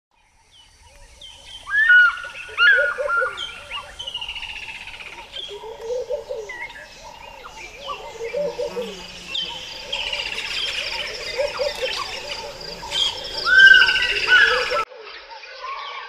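A chorus of several bushveld birds calling and singing together: many quick chirps and whistled glides over a lower call repeated every second or so. It fades in at the start and cuts off abruptly near the end, giving way to a quieter mix of bird calls.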